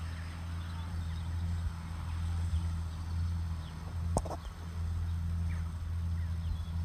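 Steady low rumble with faint bird chirps over it and a couple of sharp clicks about four seconds in.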